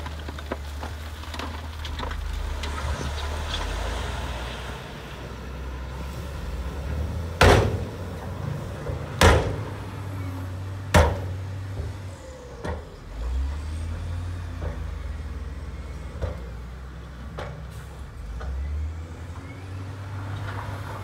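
Diesel engine of a heavy earthmoving machine running, its low drone easing off and picking up again as it works. Three loud bangs come in the middle, under two seconds apart, with a few lighter knocks later.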